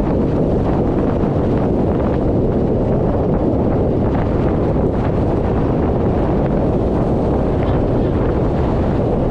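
Steady wind noise on the microphone over the rumble of a boat under way and the rush of water along the hulls.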